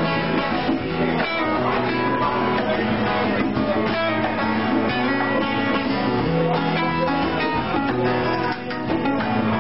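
Live band playing an instrumental passage, led by a strummed acoustic guitar over a steady bass line, with no singing.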